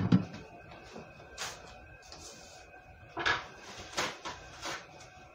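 Kitchen handling noises: a sharp knock at the start, then a few lighter knocks and clicks spread out, as things are picked up and set down around the counter.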